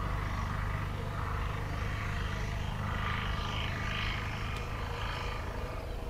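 Steady low rumble and hum of an approaching freight train led by twin WAG-5 electric locomotives.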